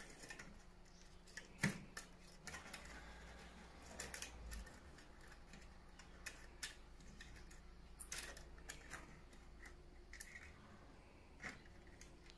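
Faint, scattered clicks and light knocks as a PlayStation 4 Pro's motherboard and cables are handled and fitted back into the console's chassis, over a low hum.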